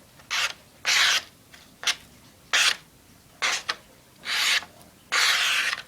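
Folding knife blade drawn through material in about seven short rasping strokes, evenly spaced, to test how sharp the freshly re-ground edge is.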